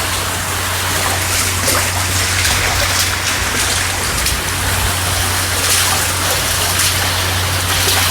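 Water rushing steadily, a constant hiss with faint splashes.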